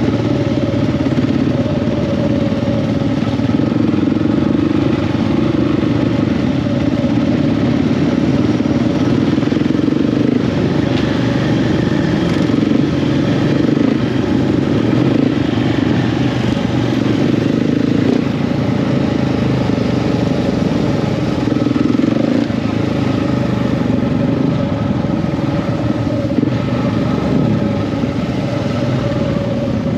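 Motorcycle engine running steadily while riding at a constant speed on the road, with an unbroken hum and no sharp revving.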